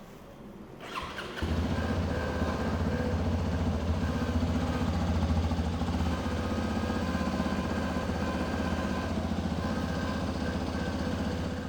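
A new Hero Xpulse 210's single-cylinder engine is started about a second in, catches, and settles into a steady idle. The owner hears a buzz or vibration from somewhere on the bike just after starting, which he takes for a fault on the new machine.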